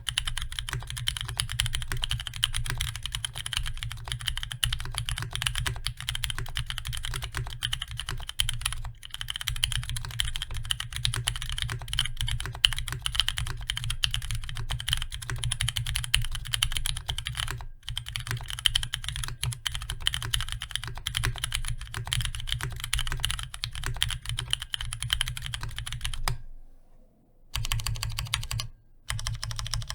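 Fast, continuous typing on a Heavy Metal Keyboards HMKB75 custom mechanical keyboard with stock Cherry MX Ergo Clear tactile switches on a steel plate and GMK keycaps. The keystrokes stop for about a second near the end, then resume.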